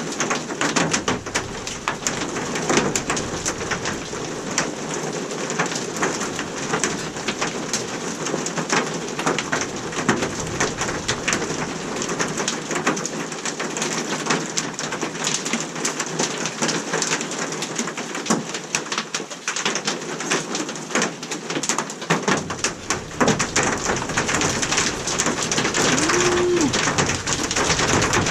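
Hailstones pelting down in a dense, unbroken patter of small hard impacts, growing a little heavier near the end.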